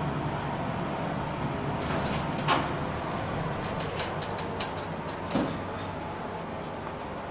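Hydraulic elevator's sliding car doors working: a run of clicks and rattles with two louder knocks, about two and a half and five and a half seconds in, over a steady hum in the cab.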